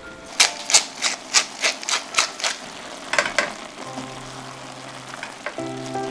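Wooden spice mill twisted by hand, grinding in a quick run of about eight crunches, roughly three a second, then two more after a short pause. Soft background music with held notes takes over in the second half.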